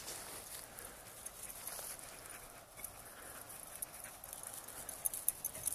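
Light crunching and rustling steps through dry, cut grass stubble, with a run of sharper crackles near the end.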